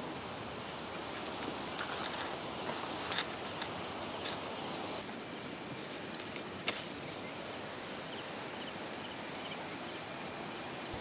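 Steady high-pitched chorus of crickets, with one sharp snap about two-thirds of the way in as a knife cuts through a bottle gourd's stalk.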